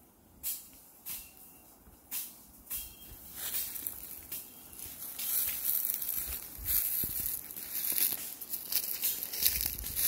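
Footsteps crunching through dry leaf litter: a few separate steps at first, then from a few seconds in a denser, louder run of crunching and rustling of dry leaves and brush.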